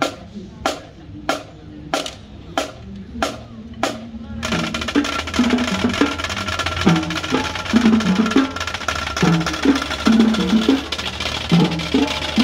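Drumsticks click together in a steady count-off, about one and a half clicks a second. About four seconds in, the full marching drumline comes in: Pearl marching snares play rapid patterns over runs of pitched bass drum hits.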